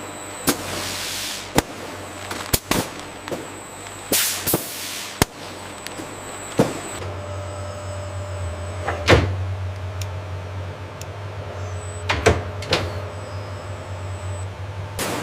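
Factory machinery running with a steady low hum, broken by sharp clanks and knocks, the loudest about nine seconds in, and two brief hissing whooshes around four seconds in.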